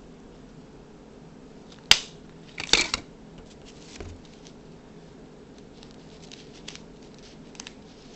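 Handling noise: one sharp click about two seconds in, then a short clatter of small knocks, with a few faint ticks later over a steady low hum.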